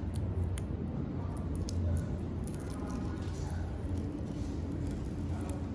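Faint rubbing and small clicks of fingers pressing adhesive tape down along the edge of the LCD screen, over a steady low background hum.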